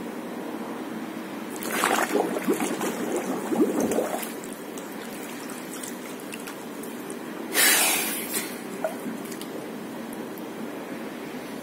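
Water splashing as a man sitting in a small cold plunge pool ducks his head under about two seconds in, then sloshing and dripping for a couple of seconds as he comes back up. A second short, sharp burst of noise follows about two-thirds of the way through.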